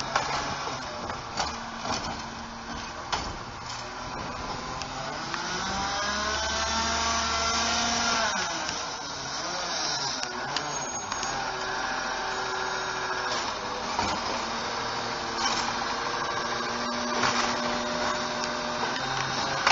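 CNG-powered Autocar ACX garbage truck with a Bridgeport Ranger automated side-loader arm dumping trash carts. There are knocks and clanks from the cart and arm in the first few seconds. About five seconds in, the engine and hydraulics rise in pitch, hold, and fall back around eight to nine seconds as the arm cycles, with further clanks and steady running later.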